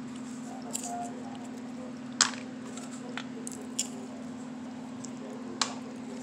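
Toasted peanuts cracking: four short, sharp crunches spread a second or more apart, the loudest about two seconds in, over a steady low hum.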